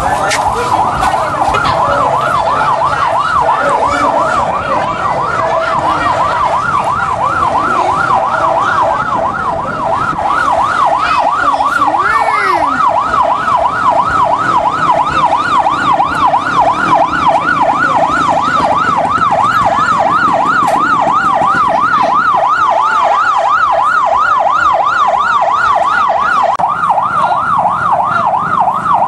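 A siren yelping without letup, its pitch sweeping up and down about two to three times a second, over the running of passing motorcycle engines.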